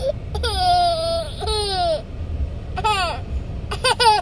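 A toddler's high-pitched, squealing laughter: a long shriek falling in pitch about half a second in, then shorter squeals, several in quick succession near the end.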